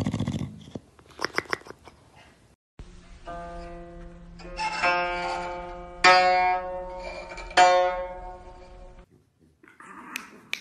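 Guzheng strings swept by a cat's paw: four chords of many strings at once, the last three about a second and a half apart, each ringing on and slowly dying away. A dog's snore-like sound is cut off at the very start.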